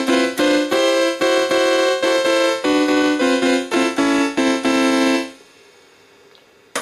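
EMI Kvintet electronic keyboard playing a quick series of short struck chords on its harpsichord voice. The playing stops a little past five seconds in. Near the end comes a single sharp click as a tone button on its panel is pressed.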